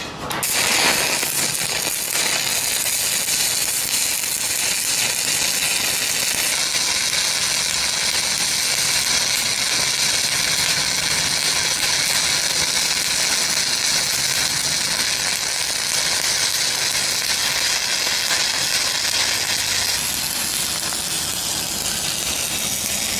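Shielded metal arc (stick) welding with a 1/8-inch 7018 electrode, running a fill pass in a horizontal groove joint. The arc crackles and sizzles steadily and evenly, with a slight change in its tone about a third of the way in and again near the end.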